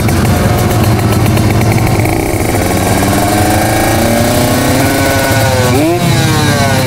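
Kawasaki Ninja RR 150 single-cylinder two-stroke engine running hard. From about two seconds in, its pitch climbs steadily as it accelerates. Near the end the pitch dips sharply and climbs again, as at a gear change.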